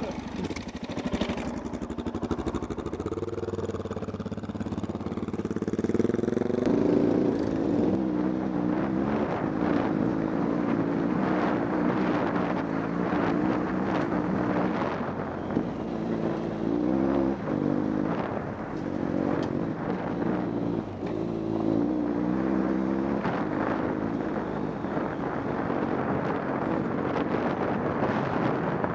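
Motorcycle engine running under way, its note rising and falling in steps as it accelerates and changes gear.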